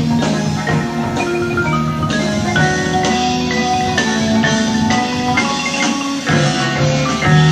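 A live jazz-rock band playing: quick marimba runs over bass guitar and drums.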